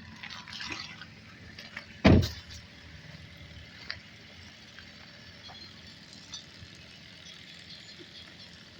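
A single heavy thump about two seconds in, with some rustling and crackling in the second before it, over a low steady background.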